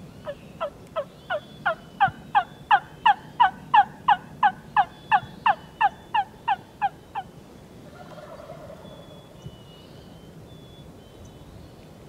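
A hunter's turkey call blown at the mouth, giving a long, even run of about twenty hen yelps, roughly three a second, building louder toward the middle and then easing off before stopping about seven seconds in. It is calling to roosted gobblers to draw them over before they fly down.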